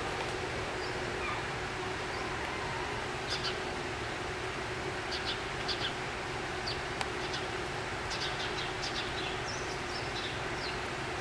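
Steady rush of an exhibit waterfall, with small birds chirping in short scattered bursts over it from a few seconds in, and a faint steady hum underneath.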